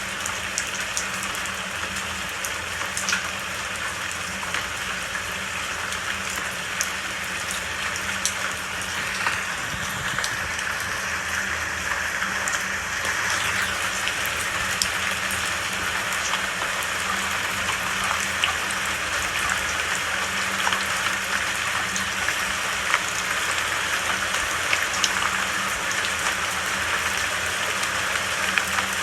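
Steady rain, with scattered sharp ticks of individual drops.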